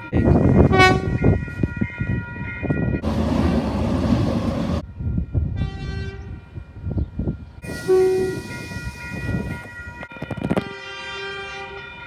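Electric passenger trains sounding their horns in several blasts: one near the start, short ones around the middle, a longer one about two-thirds of the way in, and a held one near the end. A rushing noise comes in between about three and five seconds in, and faint steady ringing tones run underneath.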